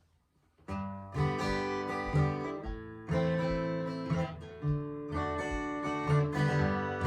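Acoustic guitar playing a folk song's introduction: chords strummed and left to ring, starting a little under a second in after a brief near silence.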